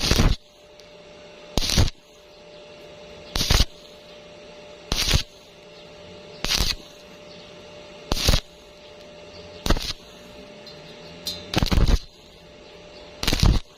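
Stick welding arc crackling in short bursts, struck and broken about every second and a half to two seconds, over a steady hum.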